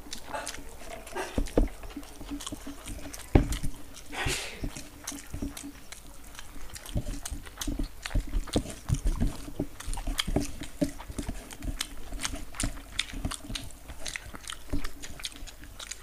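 Two people eating fried rice and chicken manchurian with their hands: a steady patter of wet chewing and mouth noises and fingers working the rice on the plates, picked up close by a table-top microphone. A single sharp knock about three and a half seconds in is the loudest sound.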